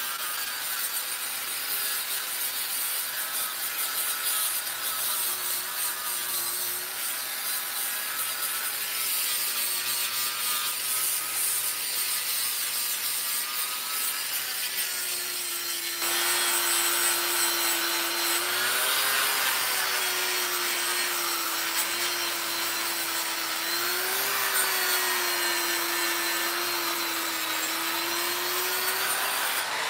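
Electric angle grinder grinding the face of a steel slab. The motor's pitch sags and recovers as the disc is pressed in, the grinding gets louder about halfway through, and the pitch rises near the end as the load comes off.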